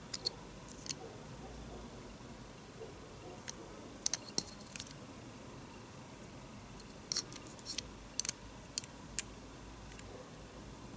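Light, sharp clicks and taps in small irregular clusters, the sound of small objects being handled during an unboxing.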